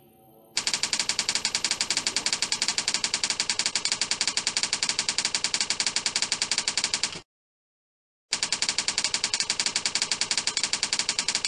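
Rapid typing sound effect: a fast, even run of keystroke clicks, about ten a second. It starts about half a second in, breaks off for about a second near the seven-second mark, then resumes.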